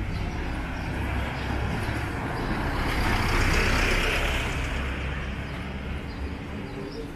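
A vehicle passing close by on the street, swelling to its loudest about halfway through and then fading, over a low rumble.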